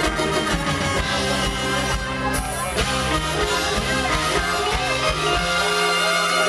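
Amplified live mor lam band music with a drum kit. About five seconds in, the drums stop and the band holds a long closing chord.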